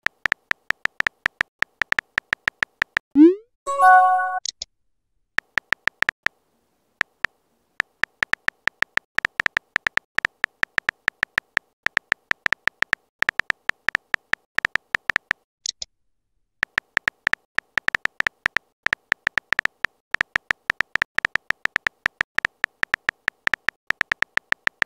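Simulated phone-keyboard typing clicks from a texting-story app, a rapid run of short ticks with brief pauses. About three seconds in, an incoming-message notification sounds: a short rising blip and a chime.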